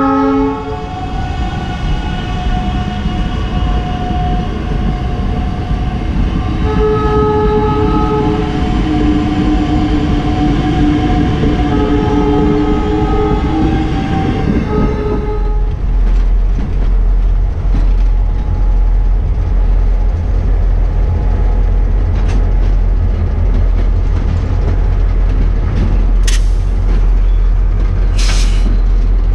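A South Shore Line electric passenger train passing close by, sounding its horn in several multi-tone blasts over the rumble of its wheels. About halfway through this gives way to a diesel freight locomotive's low, steady engine drone, with two short hisses near the end.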